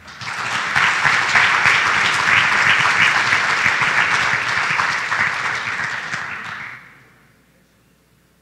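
Audience applauding, many hands clapping at once, starting straight away and dying out about seven seconds in.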